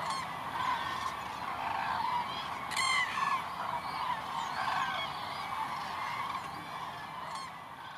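A large flock of common cranes calling together: a dense chorus of many overlapping trumpeting calls, with one louder, closer call about three seconds in.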